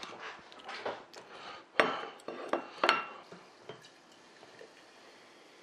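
A small ceramic plate and utensils clinking and knocking against the plastic salad bowl and table, a string of short sharp clinks with the loudest about two and three seconds in. After that, cola is poured faintly into a glass jar mug.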